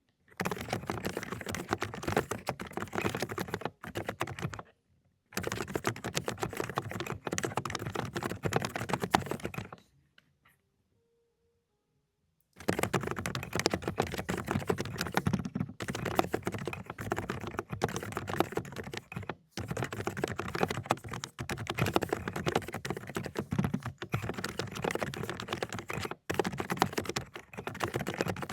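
Fast typing on an Aula ("독거미") mechanical keyboard with low-noise cotton-candy switches: a dense run of muted keystrokes. It pauses briefly about five seconds in and stops for about two and a half seconds around ten seconds in before picking up again.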